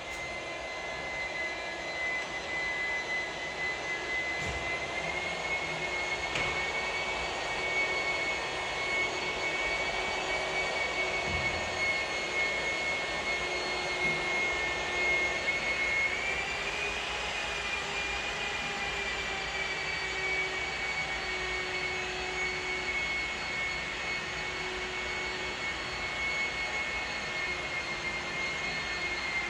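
Electric rotary polisher buffing a scratch out of glass, running with a steady high whine over a hiss; its pitch rises a little about halfway through and settles back.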